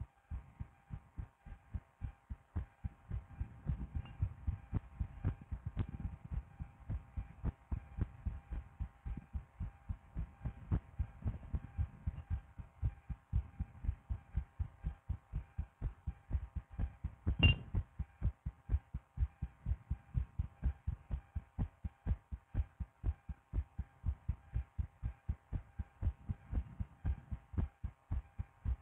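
A person's heartbeat heard through a stethoscope on the chest: a quick, regular run of low thumps. A single sharp click about seventeen seconds in is the loudest moment.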